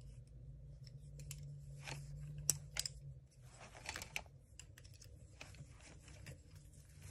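Paint brushes clicking and rattling against one another as they are picked through in a brush holder: a string of light clicks, with a louder knock about two and a half seconds in.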